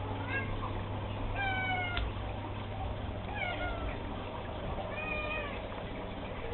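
Four short animal calls, each a pitched note that dips slightly, about a second and a half apart; the second is the longest and loudest. A steady low hum runs underneath, and there is a click about two seconds in.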